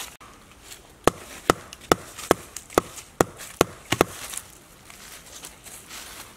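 Wood being struck: eight sharp knocks at a steady beat, a little over two a second, stopping about four seconds in.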